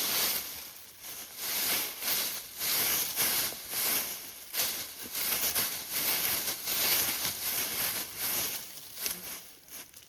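Footsteps rustling through forest undergrowth and leaf litter, about two steps a second, fading near the end.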